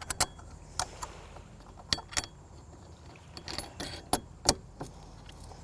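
Small metal clicks and clinks, about a dozen irregular taps, as large washers and knurl nuts are fitted and hand-tightened onto the bolts holding the mast step to the boat's floorboard.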